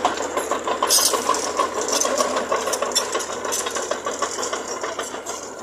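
Heavy earthmoving machinery running, its diesel engine going steadily under a dense metallic rattling and clatter.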